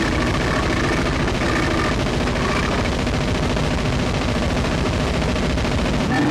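Gorenoise (harsh noise music): a dense, unbroken wall of noise with a rapid crackle, steady in loudness. Just before the end the bass drops out and a rising sweep comes in.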